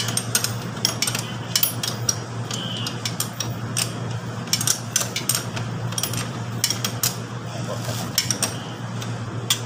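Hand tools clicking and clinking on metal at a motorcycle's rear wheel while the axle nut and bolt are worked loose: irregular sharp metallic clicks, with a steady low hum underneath.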